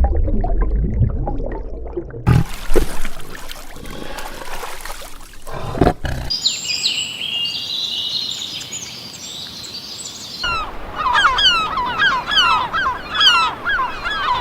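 Spliced animal sound clips: a low, noisy stretch first, then from about six seconds in birds chirping, and in the last four seconds a bird repeating a quick call about twice a second.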